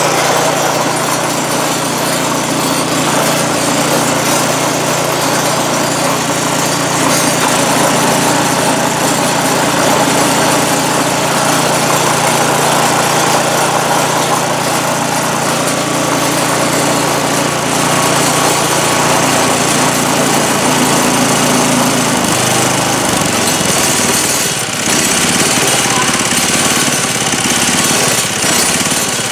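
A 22-inch Yard Machines (MTD) snowblower's small gasoline engine running steadily on a test run, with the auger, impeller and drive wheels working after the broken plastic cable clamp was replaced. Its note changes about three-quarters of the way through.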